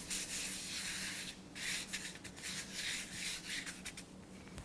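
A hand rubbing flour across a pastry cloth, a dry brushing swish in repeated strokes that grows fainter near the end.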